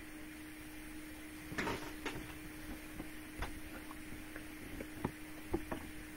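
Quiet call audio with a steady low electrical hum and a handful of short, soft clicks and knocks scattered through it, the sharpest a little after five seconds in.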